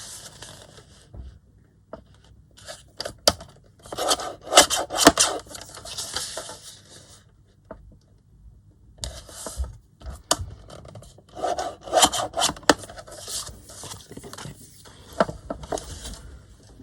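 Paper being handled, rubbed and scraped on a work surface, in irregular bursts with sharp clicks and taps between.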